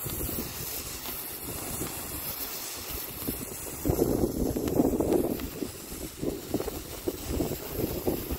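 Handheld Panda Magic Fire firework fountain burning with a steady hiss as it sprays sparks. Wind buffets the microphone in gusts, most strongly about four seconds in.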